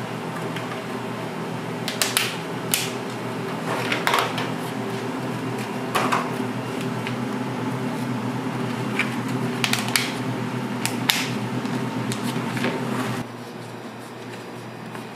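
A steady machine hum with a dozen or so sharp clicks and taps of utensils or moulds scattered through it. The hum drops away abruptly about thirteen seconds in, leaving a quieter hiss.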